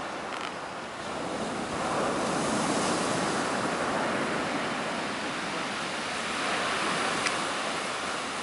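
Black Sea surf breaking on a pebble beach: a steady wash of noise that swells about two seconds in.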